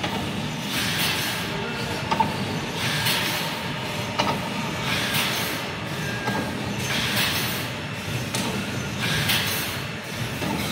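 Wire mesh welding machinery cycling, a surge of hiss coming about every two seconds over a steady mechanical running sound, with a couple of sharp clicks.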